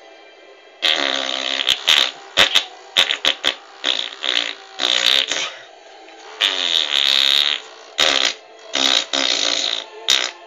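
Stadium crowd ovation, loud and heavily distorted by an overloaded microphone. It breaks in suddenly about a second in and comes in irregular surges of cheering and shouting.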